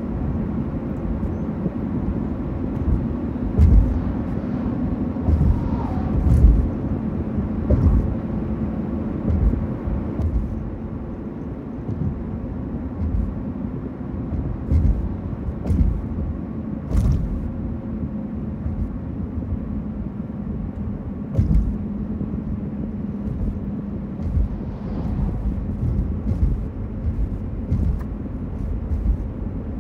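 Road traffic: a steady low drone of car engines and tyres with a held hum, broken every few seconds by low thumps and a few sharp clicks.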